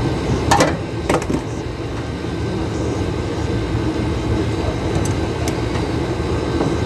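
Steady low mechanical hum of an air-conditioner unit, with two sharp clicks about half a second and a second in.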